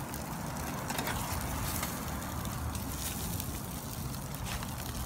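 Whole fish sizzling and crackling on a wire rack over a charcoal grill, with scattered short crackles over a steady low rumble.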